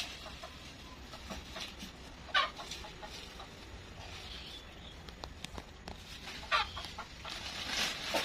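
Two short animal calls, about two and a half and six and a half seconds in, with scattered faint clicks between them.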